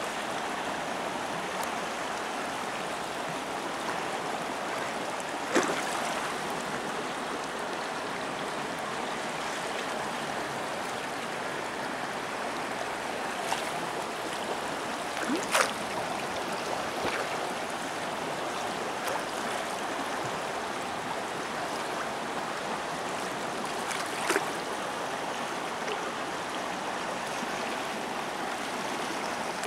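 Shallow river current flowing steadily over a gravel bed, with a few brief sharp sounds, the loudest about halfway through.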